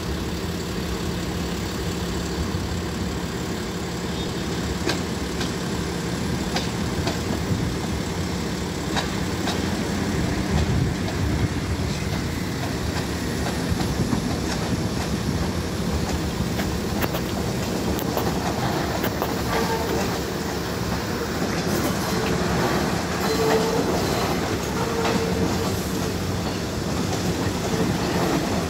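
R68A subway cars rolling slowly through a rail yard: a steady low rumble and hum, with the wheels clicking over rail joints and switches. Short wheel squeals come in the second half.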